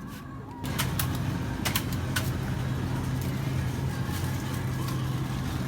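Car engine running steadily, a low even hum that comes in less than a second in, with a few sharp clicks over the first couple of seconds.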